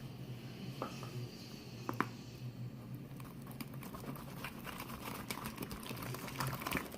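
Glue-and-laundry-detergent slime being mixed, giving faint sticky clicks and crackles that grow denser after about three seconds.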